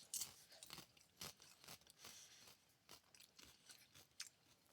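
Faint crunching as fried cream cheese rangoons are chewed, a scatter of small irregular crackles.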